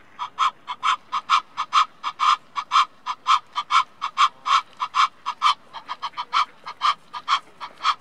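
Male Egyptian goose giving its alarm call: a fast, even series of short calls, about four a second, which stops near the end.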